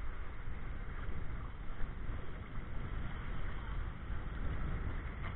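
Wind buffeting the microphone in a steady low rumble, over the wash of shallow sea water lapping across a tidal flat.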